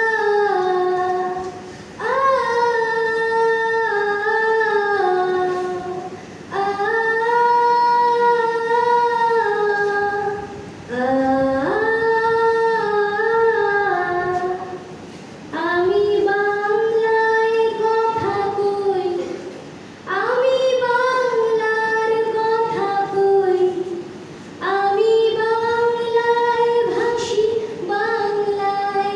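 A woman singing solo into a microphone with no instruments, in long, high held phrases that break for a breath every few seconds.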